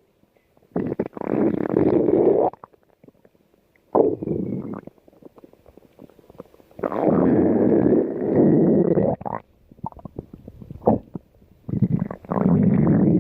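Stomach growling in a series of long stretches separated by short pauses. The longest runs about two and a half seconds, and the last is still going at the end.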